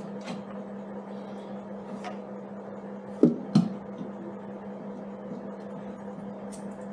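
Hand-fitting work on a motorcycle toolbox mount: a few light clicks of small parts being handled, then two sharp knocks about a third of a second apart a little over three seconds in, over a steady low hum.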